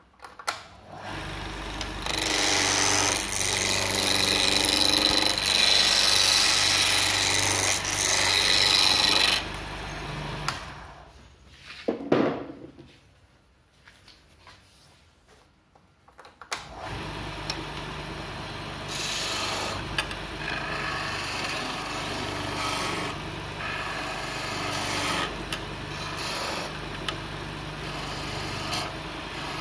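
Homemade wood lathe running while a chisel roughs a square teak block into a cylinder. There is loud scraping and chattering of the tool on the spinning wood for the first several seconds, a sharp knock about twelve seconds in, and a near-quiet pause. After that the motor hums steadily under lighter, smoother cutting.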